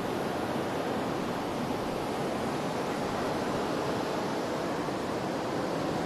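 Steady rushing noise of sea surf on the shore, even and unbroken.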